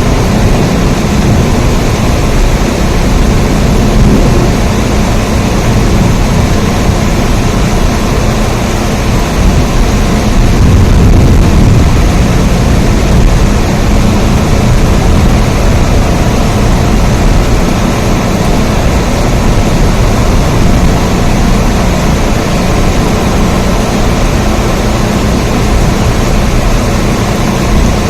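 Steady heavy rain: a loud, even rushing hiss over a deep low rumble, swelling slightly about ten seconds in.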